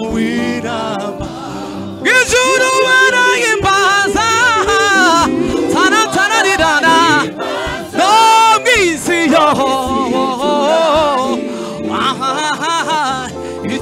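Gospel praise-and-worship song in Kinyarwanda: voices singing over backing music, the singing growing strong about two seconds in.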